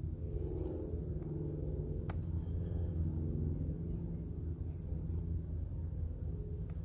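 Steady low rumble with a wavering mechanical hum of several tones, while a faint high insect chirp pulses evenly above it.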